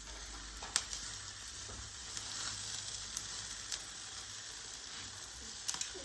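Fat sardines sizzling on a grill over wood embers: a steady hiss with a few sharp crackles and pops.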